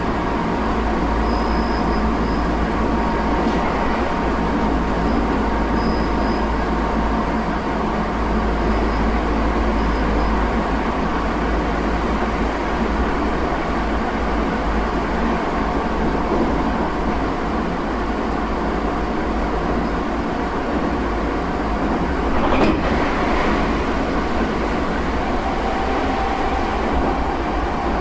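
Tokyo Metro 8000 series armature-chopper electric train running between stations, heard from inside the car: a steady rumble of wheels on rail with a constant high whine. One sharp knock comes about two-thirds of the way through.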